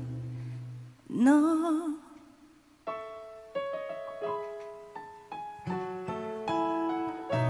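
Musical-theatre song recording: a singer's voice rises onto one held note with vibrato about a second in, then solo piano plays a slow line of single notes. A deep sustained bass note enters near the end.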